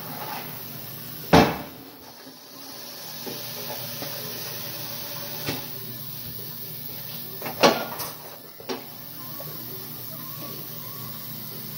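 Tire changer's bead breaker working a tire's bead off the rim: two sharp bangs about six seconds apart, with a few smaller knocks between, over steady shop noise.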